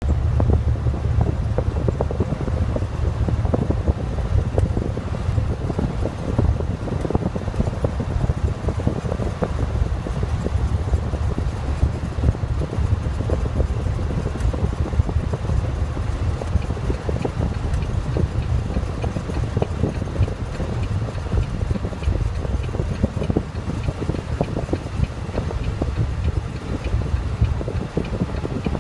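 Cab interior of a 2012 Volvo VNL semi truck driving at highway speed: a steady low drone from the engine and driveline, with road and wind noise over it.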